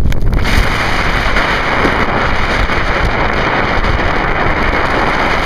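Steady wind rushing and buffeting over the camera's microphone while snowboarding downhill, mixed with the hiss of the board sliding over wet, sleety snow.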